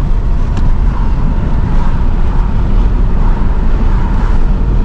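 Steady low rumble of road and engine noise inside a car's cabin as it cruises along at speed, with a faint steady tone underneath.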